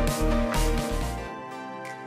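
Background music: held notes over a steady low beat. About two-thirds of the way through, the beat and bass drop out and the music falls quieter, leaving only held notes.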